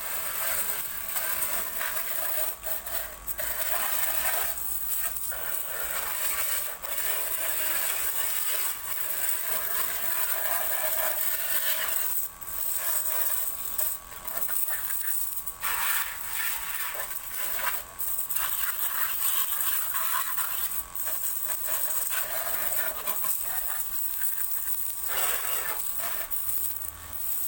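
Small 12 V DC motor-driven wash pump running, spraying water from its hose in a steady hiss with a faint motor whine and irregular rattles and brief dips.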